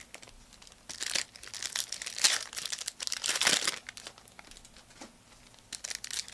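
Trading-card pack wrappers crinkling and tearing in the hands as packs are opened, in several crackly bursts with a quieter stretch a little past the middle.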